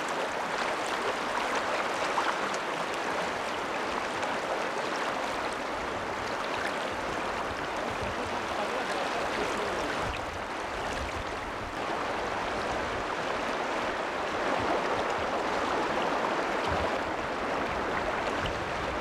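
River water flowing, a steady even rushing noise.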